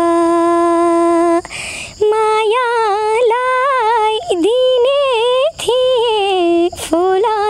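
A teenage girl singing a Nepali song unaccompanied: a long held note, a quick breath about a second and a half in, then phrases full of wavering ornaments and slides.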